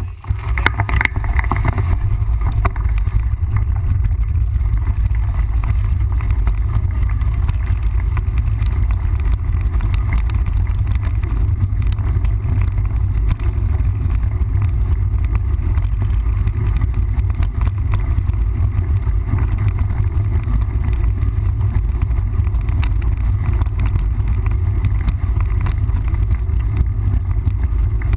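Steady low rumble of wind buffeting the camera microphone on a moving mountain bike, with a faint hiss of tyre and trail noise above it.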